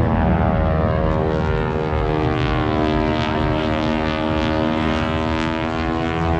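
A propeller airplane flying past, its engine and propeller drone dropping in pitch as it passes near the start, then holding a steady tone.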